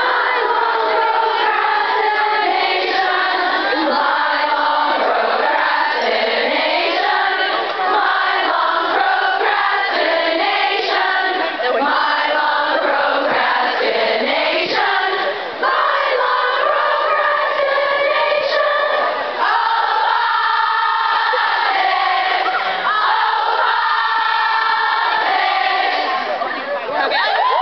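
A large crowd of college women singing a song together, many voices holding long notes in a group chorus.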